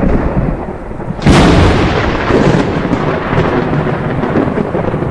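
Thunder sound effect: a low rumble, then a sudden loud thunderclap about a second in that rolls on as a long rumble.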